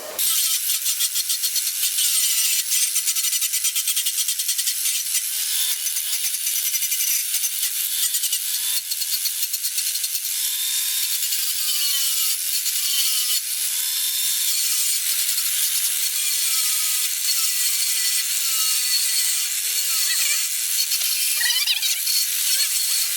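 A metalworking tool working iron plate, making a steady, harsh, high-pitched rasping that flutters rapidly.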